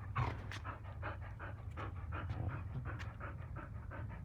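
A dog panting rapidly and evenly, about six breaths a second.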